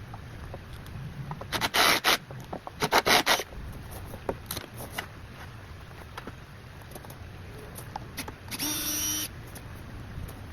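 Hand work with tools and greenhouse parts: a few bunches of sharp rattling knocks early on, scattered clicks, then a brief power-drill whirr near the end.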